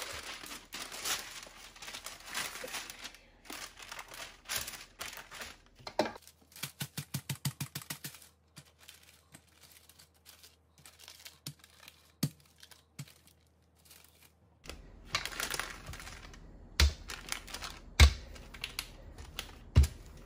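Parchment paper crinkling and rustling as dough is pressed flat and rolled out on it with a stainless steel rolling pin. A quick, even run of clicks lasts about two seconds partway through, and a few low knocks come near the end.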